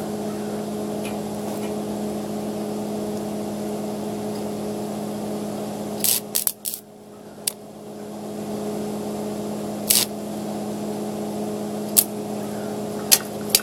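Electric arc welder striking an arc for a tack weld: a quick cluster of sharp crackles about six seconds in, then a few single sharp pops spread over the rest. A steady low hum runs underneath throughout.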